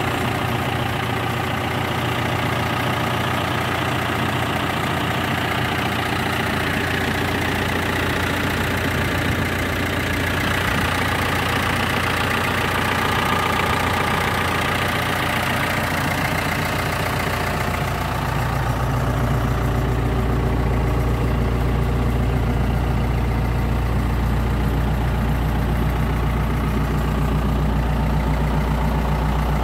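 Ford 7600 tractor's four-cylinder diesel engine running steadily at low revs. About 18 seconds in its note turns deeper and a little louder.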